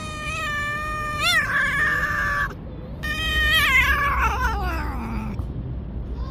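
Tabby cat, pregnant, giving long angry yowls at a hand reaching to pet it: a threat before biting. The first yowl is held steady with a brief wobble; after a short break a second one slides down in pitch as it dies away.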